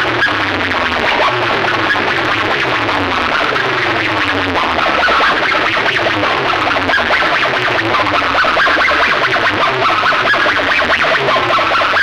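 Electronic dance music blasting loud from stacked horn loudspeakers of a DJ sound rig, with a pulsing bass and a string of repeated falling swoops in the first half.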